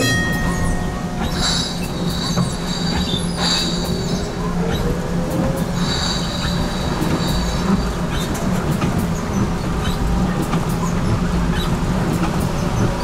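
HTM GTL8 tram running, heard from on board: a steady low hum, a tone that rises slowly about halfway through, and the wheels squealing against the rails three times in high bursts.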